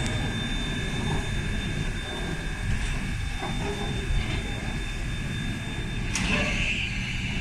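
Baldwin-built 141R 2-8-2 steam locomotive turning slowly on a turntable: a steady low rumble with a steady whine over it, and a hiss of steam that starts about six seconds in.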